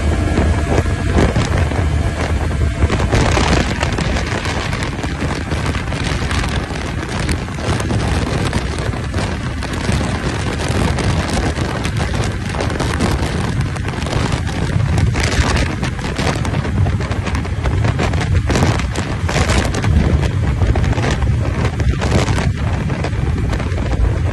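Heavy wind rushing and buffeting on the microphone of a Kymco KRV 180 scooter held near top speed, with the engine and road noise underneath. The wind comes in uneven gusts.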